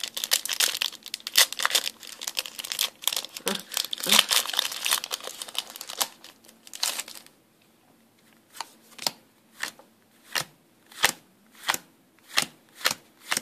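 Foil wrapper of a Yu-Gi-Oh! booster pack crinkling and tearing as it is ripped open. About a second after the crinkling stops, a steady run of sharp card flicks begins, roughly two a second, as the cards are flipped one at a time.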